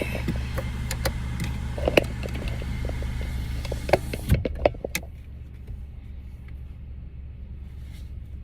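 Car engine idling, heard from inside the cabin, with several sharp clicks and knocks in the first half. About five seconds in, the outside noise drops away suddenly, leaving mostly the low idle hum.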